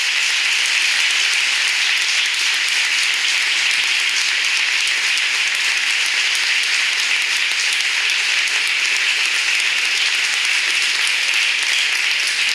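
Audience applauding: a steady, even round of clapping that holds at the same level throughout.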